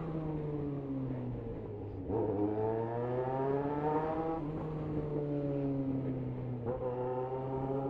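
Yamaha XJ6 motorcycle's inline-four engine under way. The engine note sinks as it eases off, then climbs steeply when the throttle opens about two seconds in. It drops at a gear change and rises again briefly near the end.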